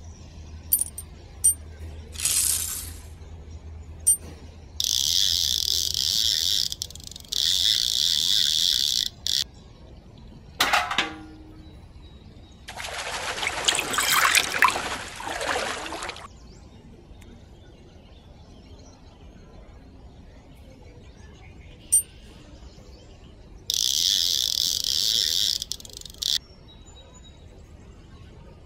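A thin stream of water poured from a tiny tin bucket, splashing into a shallow model pond for about three seconds midway. Around it come light metallic clicks and clinks from the little bucket and several bursts of steady hiss lasting two to three seconds each.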